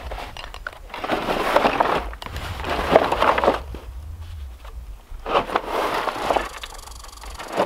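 A strapped bundle of cedar boards being shifted and handled: wood scraping and knocking against wood in three spells of about a second each.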